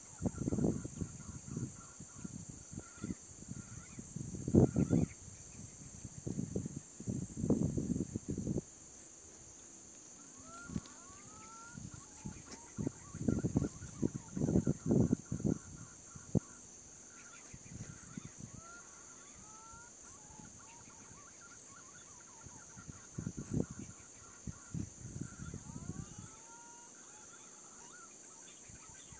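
Green pigeons (punai) giving short whistled calls that glide up and down, over a steady high insect drone. Repeated bursts of louder, low rustling noise come in clusters throughout.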